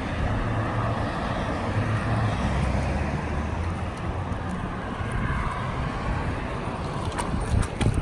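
Road traffic noise: a steady low rumble and tyre hiss from cars on the road, with a few small clicks near the end.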